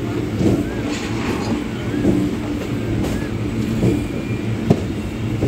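Electric multiple-unit suburban train running, heard from its open doorway: a steady hum with a few sharp clicks from the wheels on the track.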